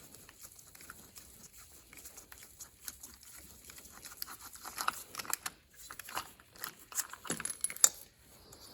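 Spark plug socket and wrench loosening and backing a spark plug out of a tractor engine's cylinder head: a string of light, irregular metallic clicks and ticks, busier about halfway through and again near the end.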